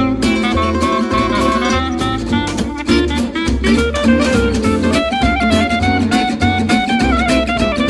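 Background music: an upbeat instrumental track with guitar and a steady beat.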